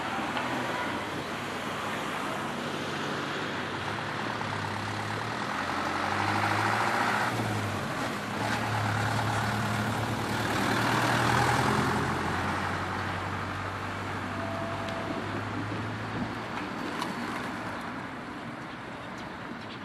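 Road traffic: motor vehicle engines running and vehicles driving past, with two louder passes about six and eleven seconds in.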